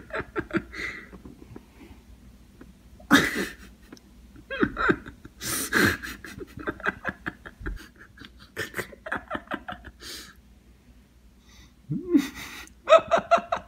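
A person laughing in repeated bursts, each a run of short, quick pulses.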